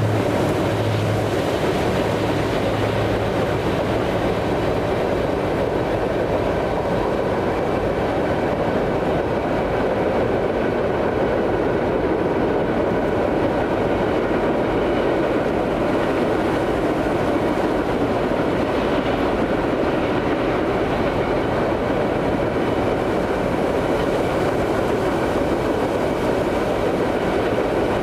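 A train's cars rolling past steadily, a continuous noise of wheels on the rails. A low hum fades out in the first few seconds.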